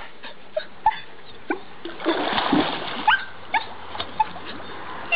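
Golden retriever puppy splashing through shallow water, with a heavier run of splashing about two seconds in. Several short, high squeaks that rise in pitch come through between the splashes.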